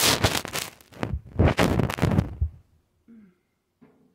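Loud, irregular rustling and scraping of a phone being handled right at its microphone while it is set up, then two short, faint murmurs of a woman's voice near the end.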